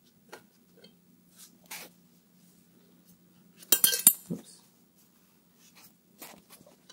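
Metal clinks and taps as a turbocharger assembly with its T4 mount and bolts is handled and turned by hand, with a short loud clatter of metal on metal about four seconds in. A faint steady low hum runs underneath.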